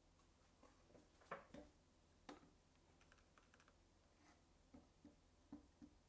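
Near silence, broken by a few faint, light clicks and taps from a metal square and a thin MDF board being handled.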